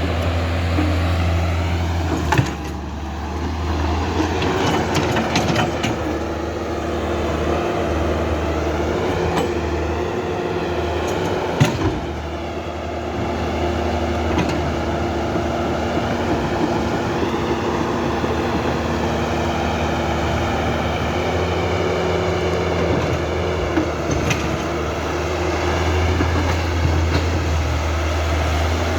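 Radio-controlled toy excavators and bulldozer running: a steady low hum under a whine that wavers up and down in pitch, with a sharp knock a couple of seconds in and another near twelve seconds.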